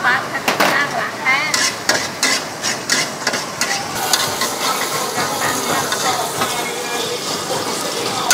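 A knife chopping on a thick wooden chopping block makes a run of sharp knocks. About four seconds in, the chopping gives way to minced aromatics sizzling in a hot steel wok as a spatula stirs them.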